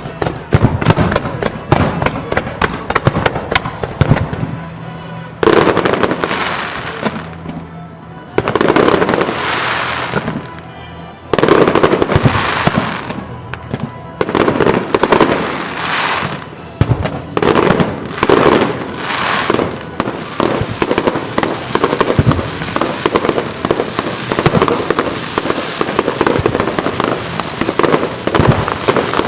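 Aerial fireworks bursting in quick succession in a finale barrage: booms with crackling trails, big bursts about five, eight and eleven seconds in, then a near-continuous crackle. Music plays underneath.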